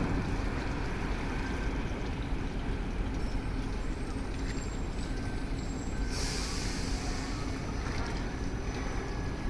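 Heavy trucks running with a low steady rumble, and a short air-brake hiss about six seconds in.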